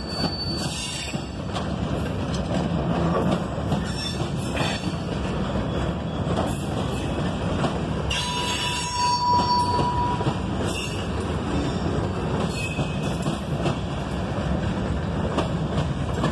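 Herzog ballast hopper cars rolling past on steel rails: a steady rumble with scattered wheel clicks. About eight seconds in, a high metallic squeal from the wheels lasts about two seconds.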